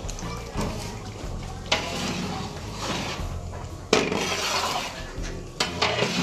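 Raw chicken livers tipped into a large aluminium pot of boiling gravy, then a long metal ladle stirring them in and knocking against the pot. There are sharp clanks about two and four seconds in, and again near the end, each followed by splashing and scraping.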